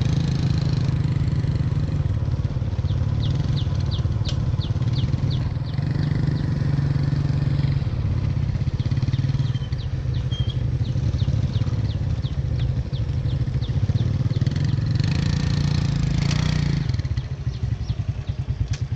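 Small motorbike engine running as the bike rides along a dirt track, with a rumble of wind and road noise. About two seconds before the end it slows and drops to an even, pulsing idle as the bike stops. A fast series of faint high ticks comes and goes over the top.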